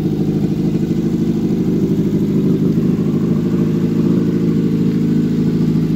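Renault 12 1289 cc four-cylinder petrol engine, swapped into a Volkswagen T2 van, running at a steady idle.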